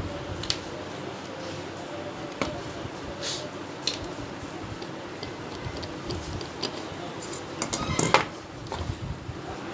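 Scattered light clicks and rattles of wires, crocodile clips and a small circuit board being handled, with a quick run of knocks and clatter about eight seconds in as the board is picked up. A steady fan hum runs underneath.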